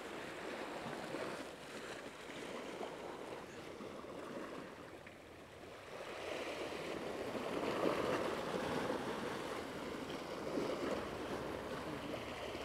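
Sea waves washing against a rocky shore: a steady wash that eases off, then swells with a bigger surge about halfway through and again near the end.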